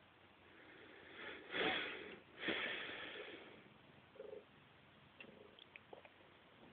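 A cat hissing twice, two breathy bursts about a second apart, followed by a few faint clicks.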